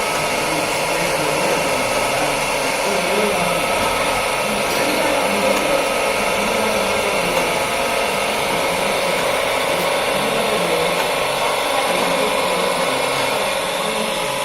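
Center lathe fitted with a gear-cutting fixture, running steadily: a loud, even mechanical whine with a few steady tones in it.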